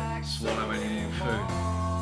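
Background song: a sung melody over a steady accompaniment, the voice settling into one long held note about halfway through.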